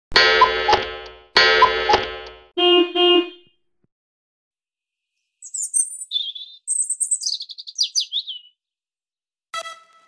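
Two loud chord hits, each fading over about a second, then two short notes. After a pause comes about three seconds of high, quick bird chirps and twitters. Music starts just before the end.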